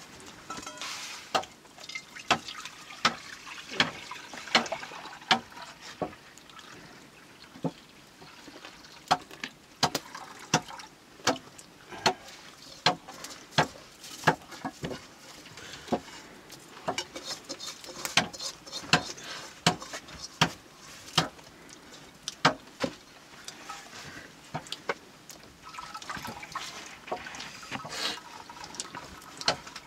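Steel bowl clinking and knocking at a steady pace, roughly one knock every three-quarters of a second, as a wet white mixture is worked in it, with liquid splashing and trickling.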